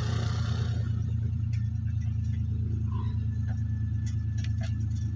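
A hooked fish splashing at the water's surface in the first second, over a steady low engine-like hum that runs throughout. A few light clicks follow.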